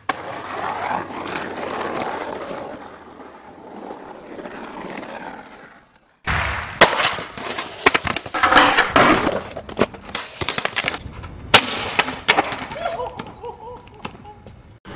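Skateboard sounds: hard wheels rolling on concrete, sharp clacks of the board and a series of loud impacts as a skater slams, with a brief voice near the end. Before this there is an even rushing noise, which cuts out for a moment before the skating starts.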